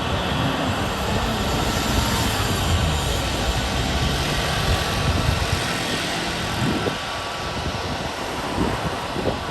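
Airbus A320neo jet airliner's engines running, a loud steady roar with a heavy low rumble that thins out about two-thirds of the way through.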